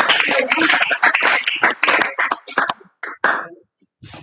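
Applause with irregular clapping, dying away about three seconds in, with a few last claps after it.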